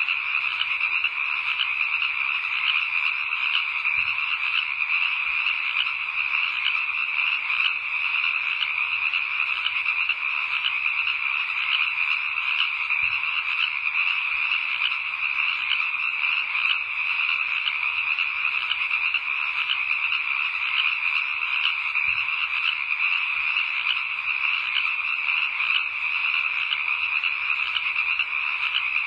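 A dense, steady night chorus of frogs, many overlapping calls trilling together without a break.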